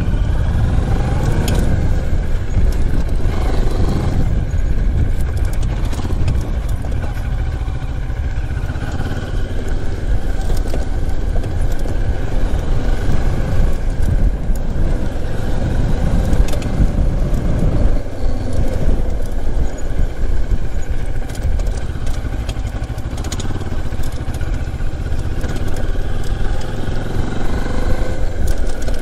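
Moto Morini X-Cape 650 adventure motorcycle's parallel-twin engine running steadily while riding a gravel track, mixed with the rumble of tyres over gravel and stones.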